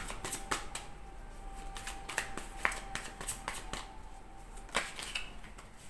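Tarot cards being shuffled by hand: a run of irregular clicks and flicks of card against card.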